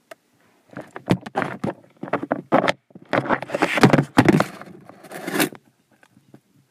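A burst of scraping and rustling with many quick knocks, lasting about five seconds and then stopping.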